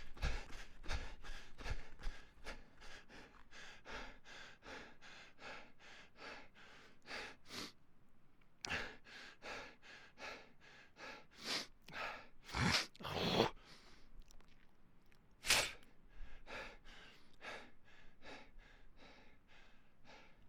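A person breathing hard after running, panting in quick, even breaths that gradually slow. A few deeper, louder breaths come around the middle.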